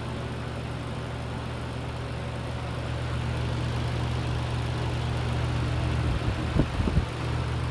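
Lakewood T12 twin box fan running on low speed: a steady electric motor hum under the rush of air from its two 12-inch blades. Its small GE motors are mismatched, the left blade turning much slower than the right, a running fault the owner cannot explain. A few dull knocks come about six seconds in.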